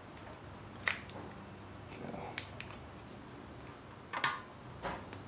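Spark plug wire boots being pushed and clicked onto the spark plugs of a small Briggs & Stratton engine: a few separate sharp clicks, the loudest about four seconds in.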